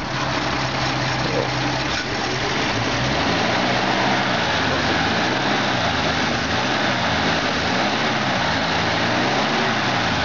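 1953 Kaiser Deluxe's flathead inline-six engine idling, heard up close under the open hood. Its idle pitch rises and falls slightly in a slow, regular rhythm.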